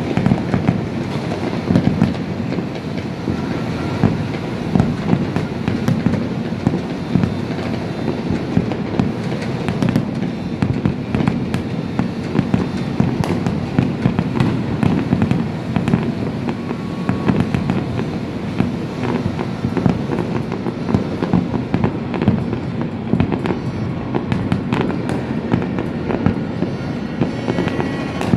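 Many fireworks and firecrackers going off without pause: a dense stream of sharp cracks and bangs over a continuous low rumble.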